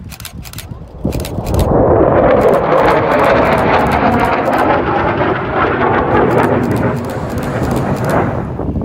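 Eurofighter Typhoon fast jet passing overhead, its twin turbofan engines giving loud jet noise. The noise swells in about a second in, holds for several seconds and falls away near the end.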